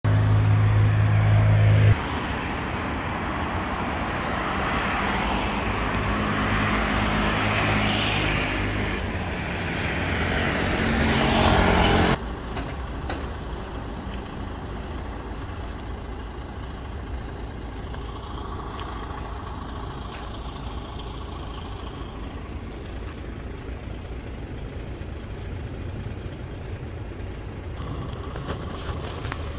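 Train running at a railway station with a steady motor hum, loud for about the first twelve seconds, then a quieter steady rumble. The sound changes abruptly about two seconds in and again about twelve seconds in.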